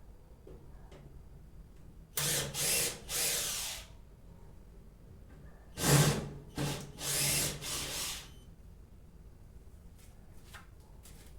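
Electric drill-driver running in short pulses, two groups of whirs, about two seconds in and again about six seconds in, backing out the screws of a microwave oven's outer cover to open it.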